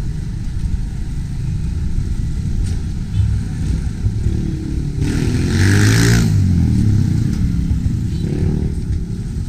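Street traffic rumbling, with a motor vehicle passing close by: its engine grows louder, peaks about six seconds in, and drops in pitch as it goes away.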